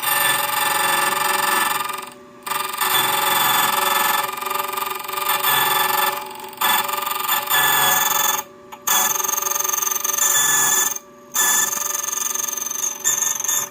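Xhorse Condor XC-009 key cutting machine's cutter running and cutting a Sargent key blank, a loud steady whine and grind. The cutting noise drops away briefly about four times and comes straight back.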